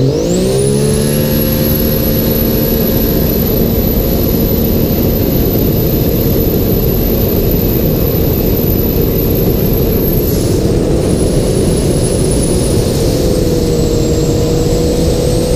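Turbocharged Sea-Doo RXP 300 jet ski's three-cylinder engine going to full throttle: in the first half-second the engine note and a very high turbo whine rise sharply together, then both hold steady at high revs. A little past ten seconds the whine drops a step and then sags slowly while the engine keeps pulling.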